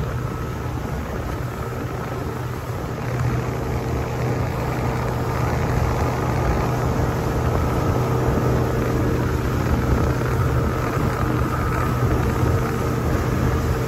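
Speedboat engine running steadily under way, a low even drone that grows a little louder about three seconds in.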